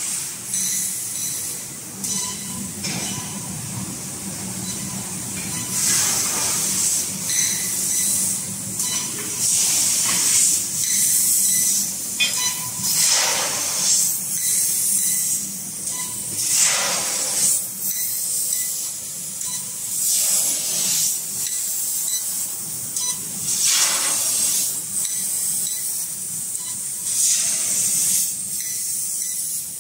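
G.Weike fiber laser cutter cutting steel sheet: repeated bursts of gas rushing from the cutting head, one to three seconds apart, over a steady low machine hum.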